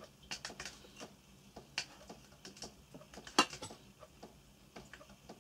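Irregular light clicks and taps, two sharper ones about two and three and a half seconds in.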